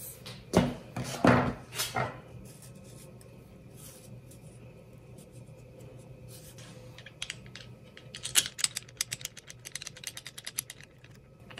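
Handling of a machined aluminium jig and its wooden add-on piece: a few sharp knocks of wood and metal in the first two seconds, then a quick run of small clicks and scrapes from about seven to eleven seconds in.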